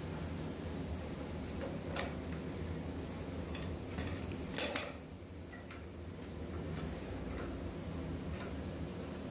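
Scattered metal clinks and knocks of steel pipe and bar clamps being set and adjusted on a wooden cabinet carcass, the loudest a little past halfway, over a steady low hum.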